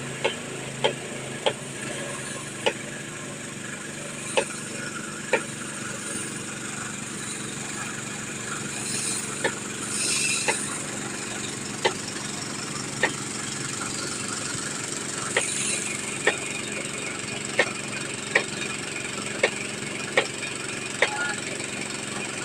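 Engine of a water-well drilling machine running steadily, with sharp knocks every second or two at uneven intervals.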